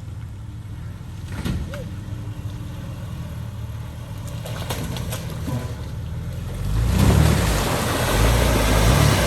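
Motor vehicle engine running, with a few short knocks. About seven seconds in it gets much louder, with a rough rumble that swells and fades.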